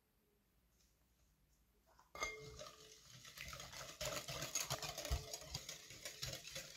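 Metal wire whisk beating a liquid batter in a glass bowl: rapid clinking and scraping of the wires against the glass, starting about two seconds in with a ringing clink.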